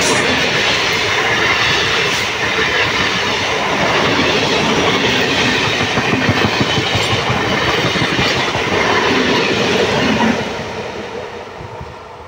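Indian EMU local train passing close by at speed: a steady rush of noise with the wheels clattering rapidly over the rail joints. The sound fades away after about ten seconds as the last coaches go by.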